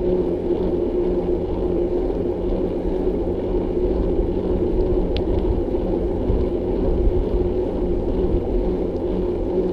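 Wind rumbling steadily on the microphone of a moving bicycle, with a constant low hum running underneath it.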